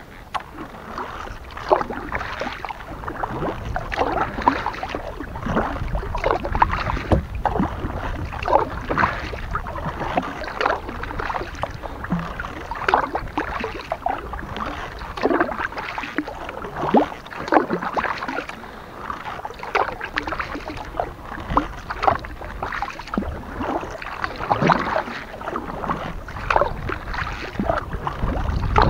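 Kayak paddle dipping and pulling through calm water, stroke after stroke, with irregular splashes and drips of water running off the blades.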